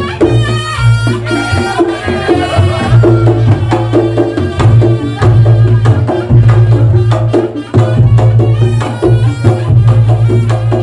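Reog Ponorogo gamelan music: fast kendang drumming over a deep sustained low tone, with a reedy pitched melody wavering above.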